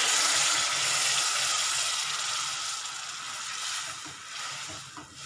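Semolina roasted in ghee in a hot kadhai sizzling loudly as hot water hits it and is stirred in. The sizzle slowly fades over the last couple of seconds, with a few light knocks of a spatula against the pan near the end.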